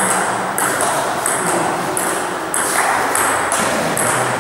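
Table tennis rally: the celluloid ball clicking in quick alternation off the table and the players' bats, a sharp tick roughly every third of a second.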